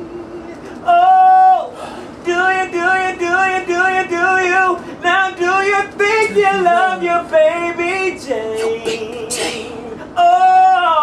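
A single voice singing in a high register, mostly short repeated notes at about three a second, with a few longer held notes.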